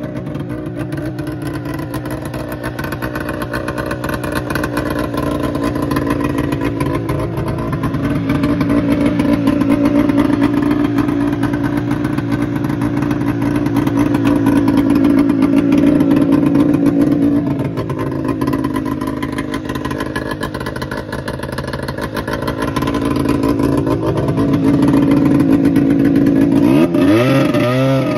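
A 1977 Arctic Cat Jag 2000 snowmobile's two-stroke engine running while the sled stands still, its speed rising and falling slowly over several seconds at a time. Near the end the throttle is opened and the engine revs up sharply as the sled moves off.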